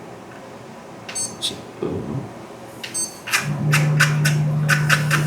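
Prusa MK4S 3D printer starting up after being switched on: a steady low hum from its fans comes in about three and a half seconds in, with a fast run of clicks over it.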